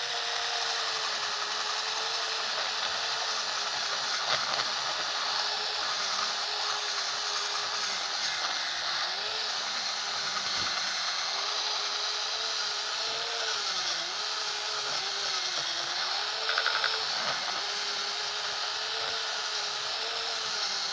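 Small electric motor of a facial-cleansing brush converted into a mini sander, whining steadily on its high-speed setting while its head rubs against a stained wooden block, over a steady scratchy hiss of sanding. The whine's pitch sags briefly now and then as pressing harder loads the weak little motor.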